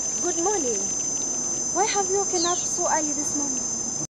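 Steady high-pitched insect chirring, several tones held without a break. A few short indistinct voices are heard underneath, and all sound drops out abruptly at the very end.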